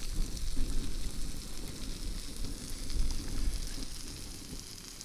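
Food sizzling on a hot griddle over a wood fire, a steady hiss, with an uneven low rumble underneath.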